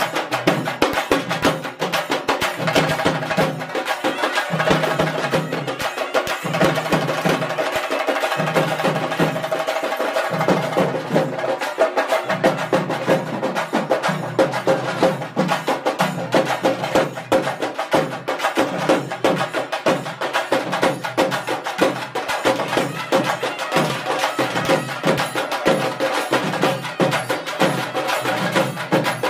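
Traditional Tamil temple-festival percussion music: fast, dense sharp drum strokes in a steady rhythm, with a held melodic tone over them.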